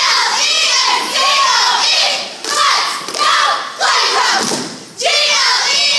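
A cheerleading squad shouting a cheer in unison in short rhythmic phrases about a second apart, with thuds from the routine.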